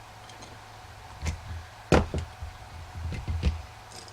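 Handling knocks as a cord and plug are moved about on a work surface: a few low thuds and one sharp click just before two seconds in.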